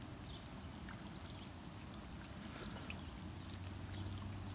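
Water trickling and dripping, with scattered drops ticking, as from rain running off a roof. A low steady hum joins about three seconds in.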